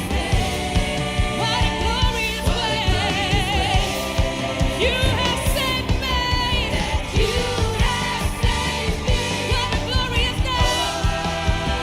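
Worship music: singers with a wavering vibrato over a band playing a steady beat.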